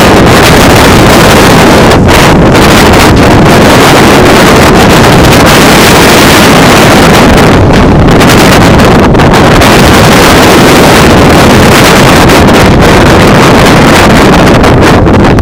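Loud, continuous wind noise buffeting the camera microphone, with a few brief lulls.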